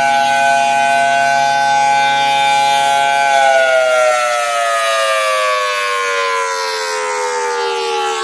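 Federal Signal Thunderbolt 1000T outdoor warning siren sounding the Attack signal. It holds a loud, steady chord of several tones for about three seconds, then its pitch falls steadily as the rotors wind down through one cycle of the wail.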